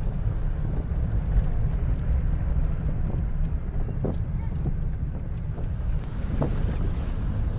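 Cabin noise of a Suzuki car driving on a village road: a steady low rumble of engine and tyres with wind buffeting the microphone. A few faint knocks come about four and six and a half seconds in.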